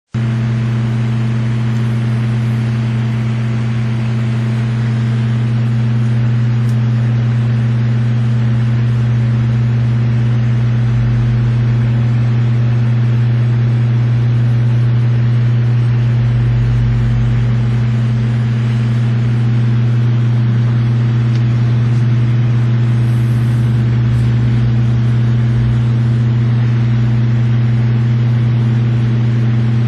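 Steady low mechanical hum with an even hiss over it, holding the same pitch and level throughout.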